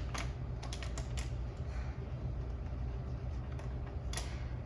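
Scattered small clicks and taps from handling a polycarbonate air deflector and its bolts and spacers while fitting it to a motorcycle: a quick cluster in the first second and a half, then a few more, the last about four seconds in. A steady low hum runs underneath.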